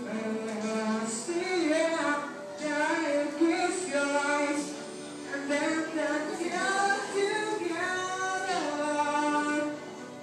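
A song with a woman singing the melody over musical accompaniment.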